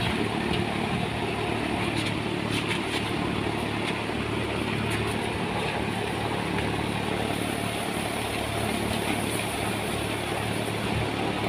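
Solar-powered thresher-winnower running steadily, its electric-driven drum and blower giving a constant hum and whirr.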